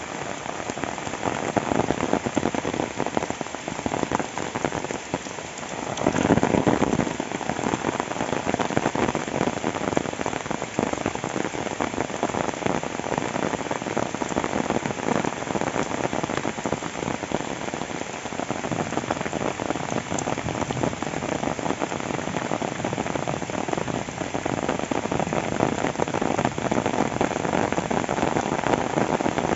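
Rain falling steadily: a dense patter of drops, with a brief louder rush about six seconds in.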